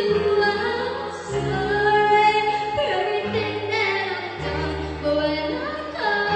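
A girl singing with long held notes while playing sustained chords on a Roland Juno-D keyboard, in a live stage performance; the chords change about every second and a half.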